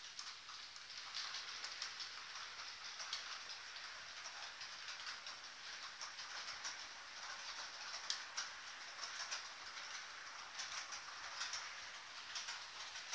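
Model train running on the layout's track: a steady rolling hiss with irregular clicks as the wheels pass over rail joints and points.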